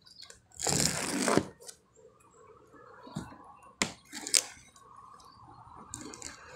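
Box cutter slitting the packing tape along a cardboard box's seam: one scraping cut lasting about a second near the start, then two short sharp clicks and softer scraping against the cardboard.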